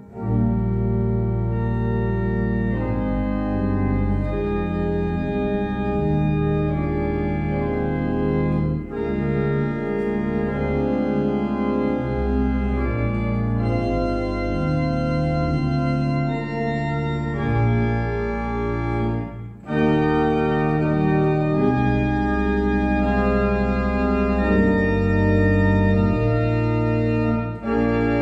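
Church organ playing a slow piece in sustained full chords over a deep pedal bass, the chords changing every second or so. It comes in with a chord at the start and has brief breaks between phrases, the clearest about two-thirds of the way through.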